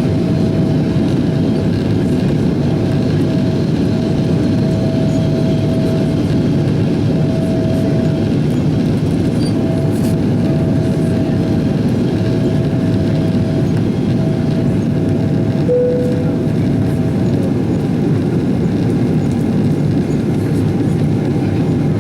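Steady roar of a Boeing 777-200ER's engines and airflow during takeoff and climb, heard from inside the passenger cabin. A faint steady whine rides on top and stops about three-quarters of the way through.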